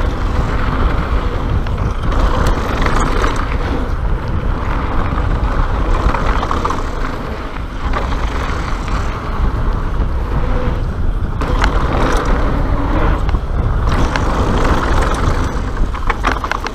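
Mountain bike riding fast down a dirt-and-gravel trail: wind buffeting the microphone under a steady rush of tyres on loose ground, with the bike rattling and clicking over bumps, more clicks near the end.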